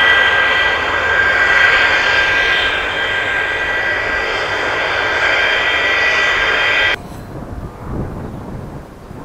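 A parked aircraft's jet engine running steadily: a loud roar with a high, steady whine. It cuts off abruptly about seven seconds in, leaving a low rumble.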